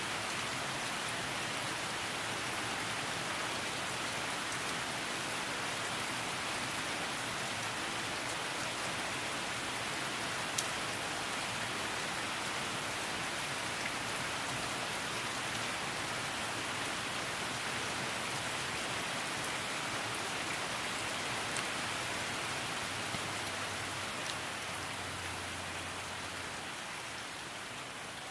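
Steady rain falling, an even hiss with a few sharper drop clicks now and then, easing slightly in level near the end.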